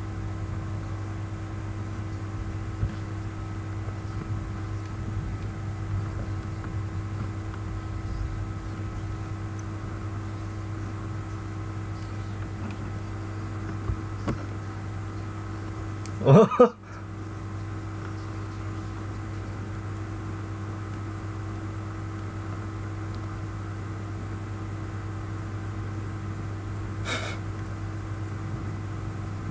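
Steady low electrical hum with faint hiss: room background noise. About halfway through, a brief, loud voice-like sound with a wavering pitch that cuts off abruptly.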